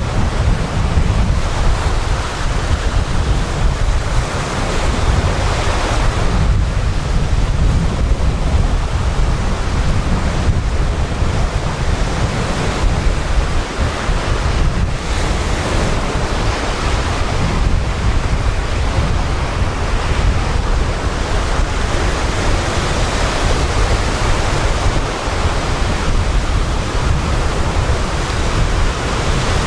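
Sea surf breaking and washing up a sandy beach, a steady hiss of foam that swells and eases every few seconds. Wind buffets the microphone as a constant low rumble underneath.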